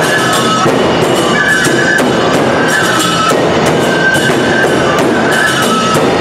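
Tsugaru nebuta festival band playing live: bamboo flutes carry a high, shifting melody over regular strikes of large taiko drums.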